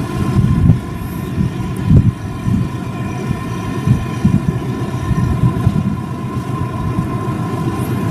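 Engines of harbour dredging equipment and work boats running: a steady engine drone with a constant high whine, over uneven low rumbling that swells now and then.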